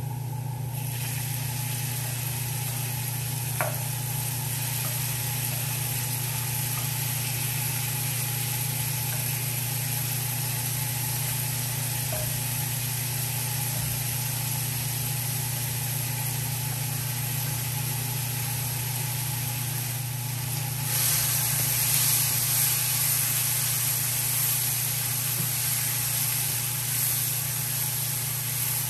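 Minced onion, scallion, bell pepper and thyme sizzling in hot melted butter in a frying pan, over a steady low hum. The sizzle gets louder about two-thirds of the way through, as the vegetables are stirred with a spatula.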